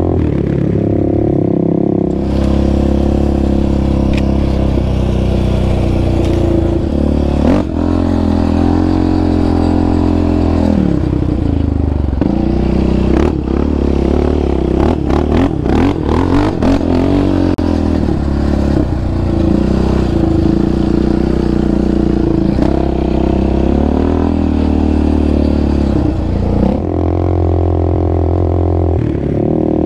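Yamaha Raptor 700R's single-cylinder four-stroke engine running under changing throttle on a dirt trail, its pitch rising and falling as the rider revs and lets off. Around the middle there is a burst of rapid rattling and clatter from the machine over rough ground.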